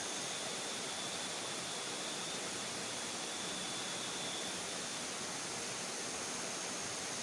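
Steady rushing water, with faint, steady high-pitched tones above it; the lower of the two tones stops about five seconds in.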